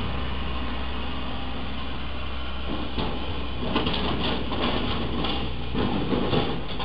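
Steady vehicle rumble, then from about three seconds in a run of crunching and scraping knocks as a towed travel trailer's roof strikes a low railroad bridge, loudest near the end.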